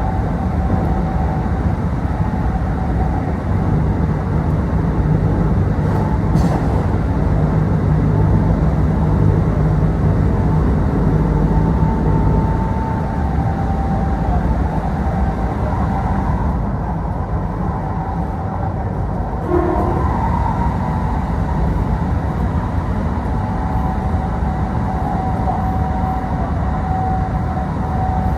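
Kintetsu Osaka Line local electric train running between stations, heard from inside the passenger car: a steady rumble of wheels on rail and car body noise, with a thin, wavering high tone over it.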